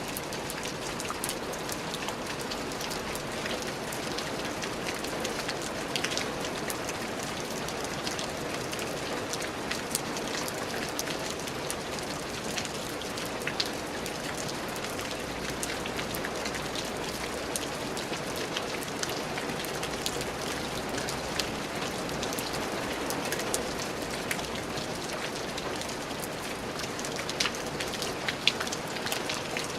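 Steady rain falling on a surface, an even hiss scattered with many small sharp drop ticks.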